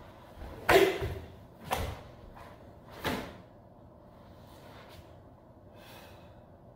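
Three sharp snaps of a karate gi with fast strikes and blocks in the closing moves of the kata Pinan Yondan, about a second apart, the first the loudest, with the thump of a bare foot stepping onto a wooden floor.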